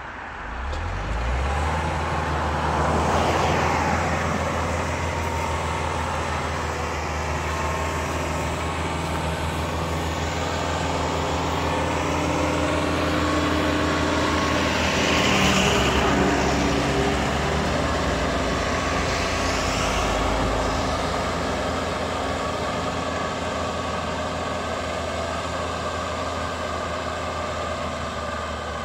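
Kubota tractor's diesel engine running steadily under load while driving a Celli rotary tiller with a ridger through the soil, growing louder as it passes closest a few seconds in and again about halfway through.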